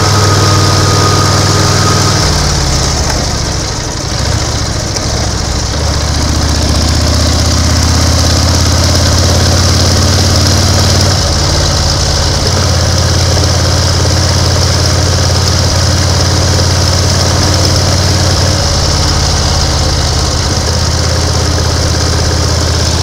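1930 BSA 770 cc V-twin motorcycle engine running under way. Its note drops about two seconds in and shifts pitch a couple more times later, over a steady high hiss.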